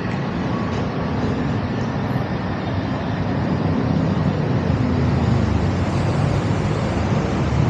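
Road traffic on a busy city street: a steady rumble of vehicle engines and tyres passing close by, growing a little louder.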